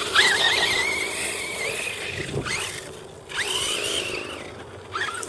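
Radio-controlled car's motor whining as it accelerates, twice: a high whine that rises quickly and holds for about two seconds, dies away, then comes back about a second later.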